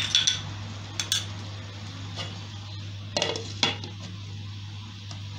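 A few sharp clinks of kitchenware against a metal cooking pan, the loudest pair about three seconds in as a glass pot lid is set down on it. A steady low hum runs beneath.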